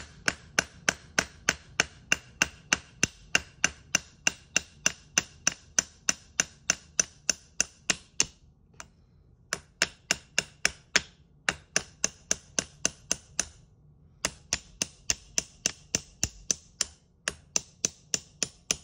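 Small hammer lightly tapping a steel roll-pin punch to drive the bolt catch roll pin out of an AR-15 lower receiver. The sharp metallic taps come steadily, about three or four a second, each with a short ring. There is a pause of about a second past the middle and a shorter one later.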